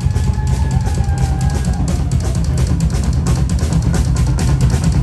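Live rock band playing loud: fast drum kit hits with cymbals under electric guitar, with a long held note for about the first two seconds.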